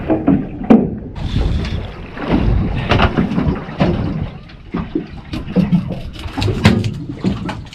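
Wind buffeting the microphone and water slapping against an aluminium boat hull, with a few sharp knocks.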